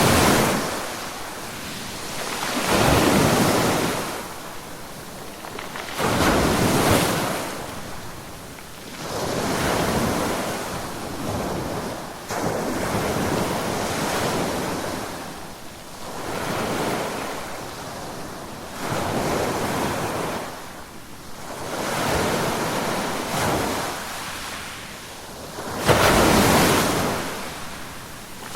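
Ocean surf: waves breaking one after another, each a swelling rush of crashing water that fades as it washes back, about every three to four seconds. A few of the breaks start more sharply than the rest.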